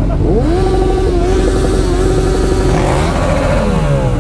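Sport motorcycle engine revved up sharply and held at high revs for about two and a half seconds, then dropping back toward idle.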